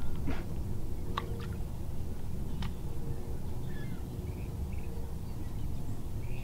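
Steady low rumble with a faint hum underneath, broken by a few sharp clicks in the first three seconds as a fishing rod is cast and its reel handled. Faint bird chirps come near the middle.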